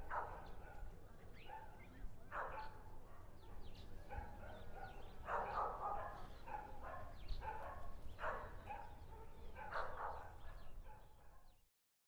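Faint animal calls in several short groups over a low steady rumble, fading out just before the end.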